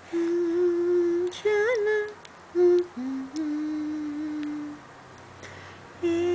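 A woman humming a slow song melody in long held notes, one with a quick wavering turn about a second and a half in, with short pauses between phrases.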